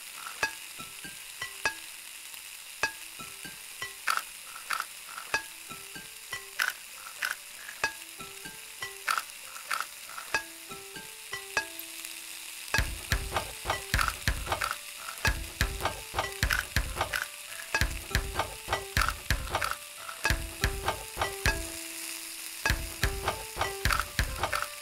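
Food sizzling in a frying pan, a steady hiss with many sharp scattered pops and clicks, layered with a simple melody of short pitched notes. About 13 seconds in, a deep pulsing bass joins and keeps a rhythm.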